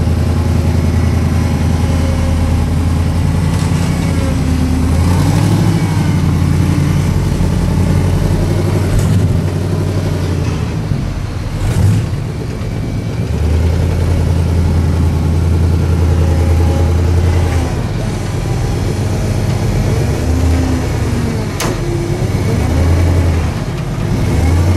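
Lifted off-road 4x4's engine running under load, revving up and falling back again and again as it crawls over a rutted trail. A sharp knock comes about halfway through, and another near the end.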